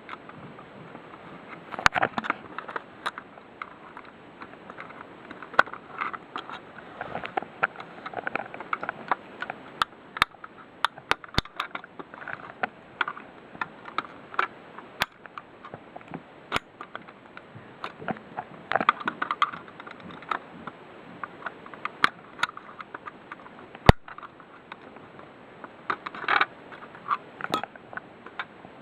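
Handling noise: irregular sharp clicks and taps with bouts of light scraping and rustling of hard objects. The sharpest click comes about three-quarters of the way through.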